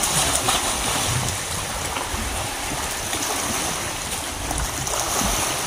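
Steady rush of sea water and small waves, with no words over it.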